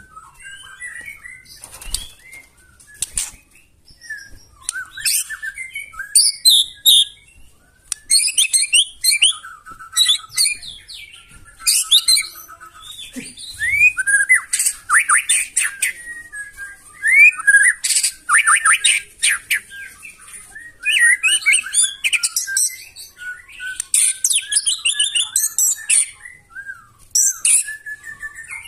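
White-rumped shama (murai batu) singing a loud, varied song of rapid whistles and harsh rattling, shooting notes, in bursts separated by short pauses. A few sharp clicks come in the first few seconds.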